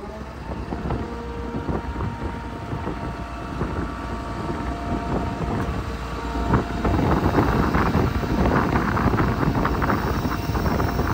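Truck's Cummins diesel engine running and driving the Altec boom hydraulics as the lower boom is raised, with a steady hum of faint tones through it. Wind buffets the microphone. The sound grows louder and rougher about six and a half seconds in.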